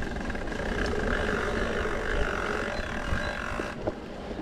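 Mountain bike rolling along a dirt trail: tyre rumble and wind on the microphone, with a steady buzz that cuts off suddenly near the end.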